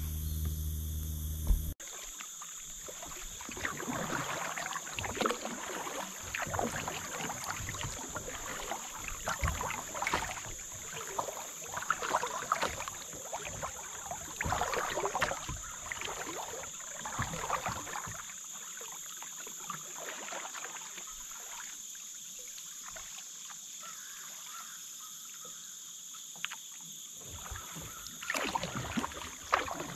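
Kayak paddle strokes: the blade dipping and splashing in the river about once a second, with water dripping off it, easing off for a long stretch and picking up again near the end. A short low hum comes before them at the very start.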